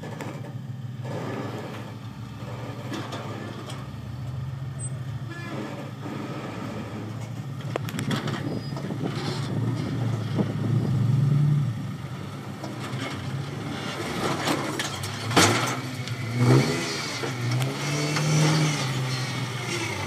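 Rock crawler buggy's engine running at low speed, revving up in short bursts as the buggy crawls down a steep rock ledge. A couple of sharp, loud bangs come about three-quarters of the way through.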